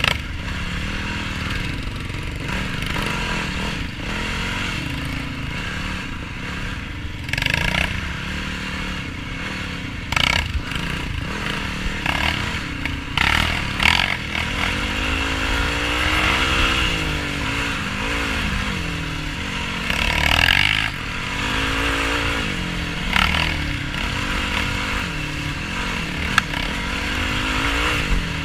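Yamaha YFZ450R quad's single-cylinder four-stroke engine revving up and down repeatedly while riding off-road. Several short louder rushes of noise and a few sharp knocks and clatters are heard along the way.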